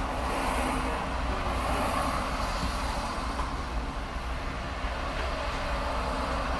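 Motorway traffic passing in the background: a steady rush of road noise that swells and eases as vehicles go by, over a low steady hum.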